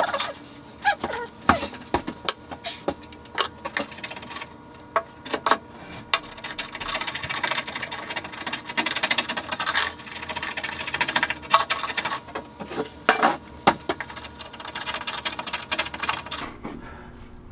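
Irregular clicks, knocks and clatter of hard objects being handled, with stretches of rustling noise in between.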